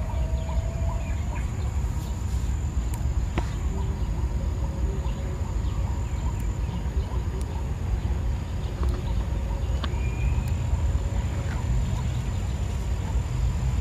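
Rural outdoor ambience: a steady low rumble and a thin steady high whine, with a few faint, short animal calls scattered through.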